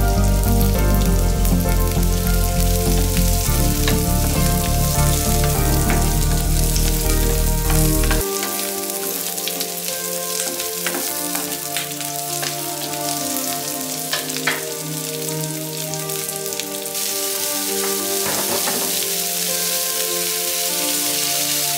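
Onion, garlic and chilli sizzling in hot oil in a nonstick frying pan, stirred with a spatula that scrapes and taps the pan. The sizzle grows louder near the end as pineapple chunks are stirred in.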